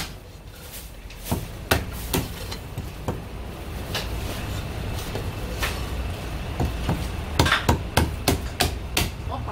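Steel cleaver chopping through marinated goose onto a thick wooden chopping block: sharp chops, spaced out at first, then a quick run of chops in the last couple of seconds.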